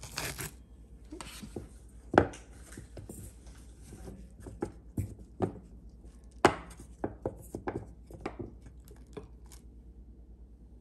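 Chocolate-coated marshmallow treats being tossed in cocoa powder in a stainless steel bowl, knocking against the metal in a run of sharp taps, with two louder knocks about two seconds and six and a half seconds in. The taps stop near the end.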